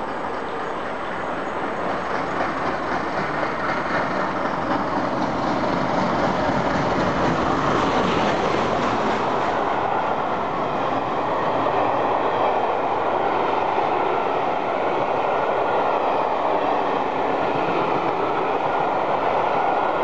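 LNER A4 class three-cylinder steam locomotive (No. 4464 Bittern) running through at speed with a train of coaches. The noise builds to a peak a few seconds in as the engine passes, then the coaches roll by in a steady rumble of wheels on rail.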